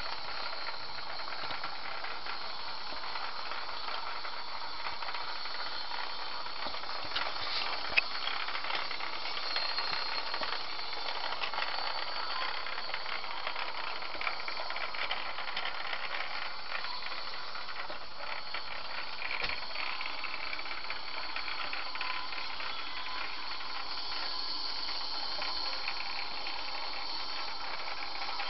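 Model trains running on a model railway layout: a steady whirring rattle of small motors and wheels on the track, with one sharp click about eight seconds in.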